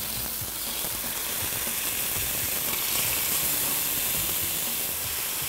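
Chicken breast frying in hot oil in a pan: a steady sizzle that comes up at the start and holds.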